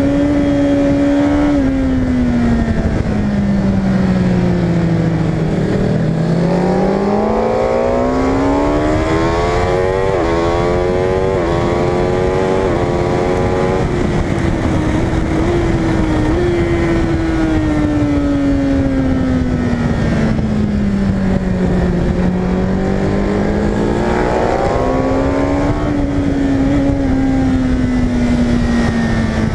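Superbike engine heard from an onboard camera at racing speed. The note drops as the bike slows for corners and climbs again under throttle, with a run of four or so quick upshifts about a third of the way in.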